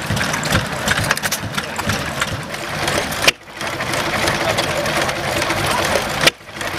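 Small vintage single-cylinder stationary engines running, with a busy, rapid mechanical ticking and clatter. The sound breaks off sharply about a third of the way in and again near the end, where it jumps from a John Deere hit-and-miss engine to a second green stationary engine.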